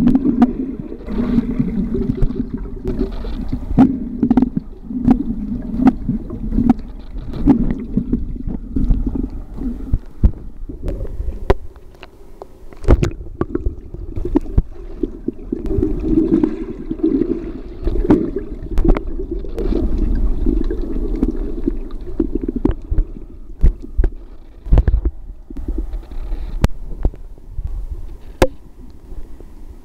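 Muffled underwater water noise heard through a waterproof camera housing: low rumbling and gurgling of moving water and bubbles, broken by many sharp knocks and clicks. It gets quieter in the last few seconds as the camera comes up to the surface.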